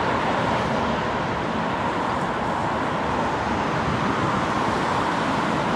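Jet noise from a Boeing 787-8 Dreamliner's GE GEnx turbofan engines as the airliner lands: a steady roar with a high whine running through it, mixed with road traffic.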